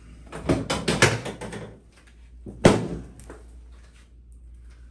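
Chiropractic drop table knocking during a face-down adjustment: a quick run of clacks and knocks, then one loud sharp knock about two and a half seconds in, followed by a few softer clicks.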